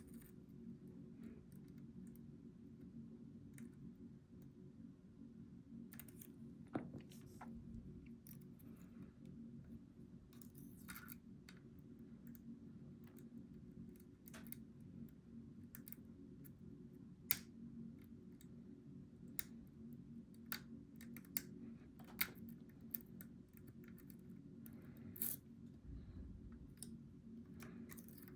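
Faint, irregular metallic clicks and ticks of a lock pick and tension tool working the pins inside a Goal V18 lock, over a steady low hum.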